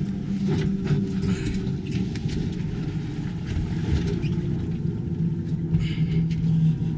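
Boat's outboard motor idling steadily, a low rumble with a constant hum that drops slightly in pitch about five seconds in.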